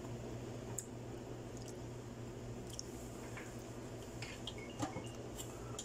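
A few light clicks and scrapes of a metal spoon against a ceramic plate, bunched together about four to five and a half seconds in, over a low steady hum.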